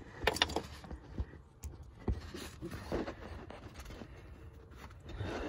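Faint scraping and a few light metal knocks as tools work at the inner tie rod's lock washer.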